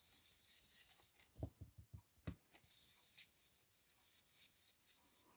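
Faint rubbing of ink being worked onto cardstock, with a few soft knocks on the table about one and a half to two and a half seconds in.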